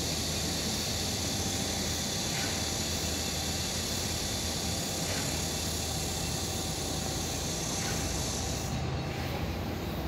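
Cicadas singing in a steady high-pitched drone that cuts off abruptly about nine seconds in, over a low steady rumble.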